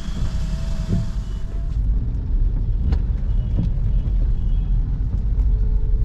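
Car cabin noise while driving on a wet road: a steady low rumble of engine and tyres, with a couple of faint clicks about halfway through.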